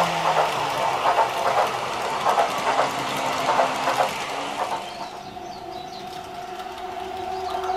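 N-gauge model freight train running on track: a steady whine with the clatter of wheels over rail joints. The clatter fades about five seconds in, leaving a quieter hum.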